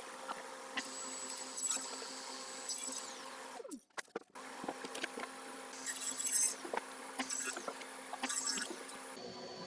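Light scratching, clicks and taps of handwork at a workbench over a faint steady hum, with a brief break about four seconds in.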